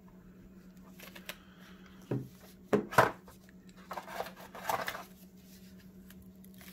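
Handling noise as a small plastic thermometer is lifted out of its cardboard box by gloved hands: a few knocks of plastic against cardboard, the loudest about three seconds in, then a short rustle.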